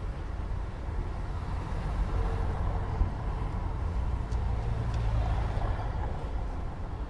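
Steady low rumble of city traffic, with a brief knock about three seconds in.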